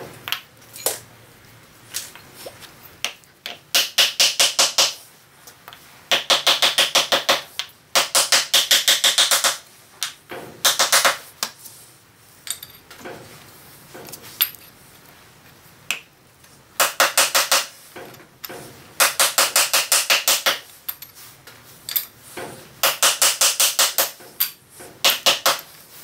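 Ball-peen hammer tapping a new bearing outer race into the headstock bore of a Hercus 9-inch lathe, driving it home. The taps come in quick runs of about eight a second, each run lasting a second or so, with short pauses between runs.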